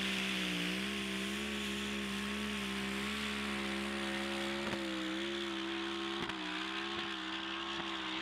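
Turbocharged drag-racing engine of a sand-drag Nissan Patrol at full throttle as it climbs the dune. It holds a nearly steady high-pitched note, with a steady hiss over it.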